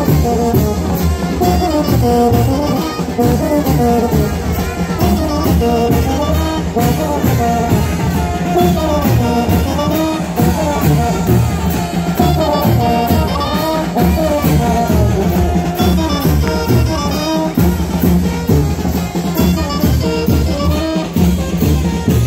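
Live brass band with drums and cymbals playing lively chinelo dance music with a steady beat.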